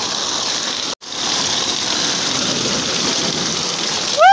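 Heavy rain pouring down in a thunderstorm, a dense steady hiss, cut off by a split-second break in the recording about a second in. Near the end a loud exclamation from a person begins.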